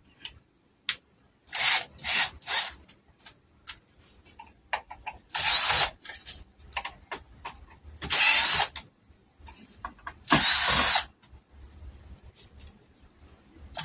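Cordless drill-driver motor spinning in three quick blips, then three longer runs of under a second each, driving screws in a flat-screen TV's sheet-metal chassis. Small ticks come between the runs.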